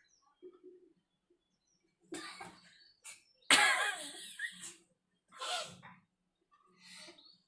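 A person coughing in a series of bursts after sniffing ground black pepper: the pepper brings on coughs instead of a sneeze. The loudest, longest cough comes about three and a half seconds in.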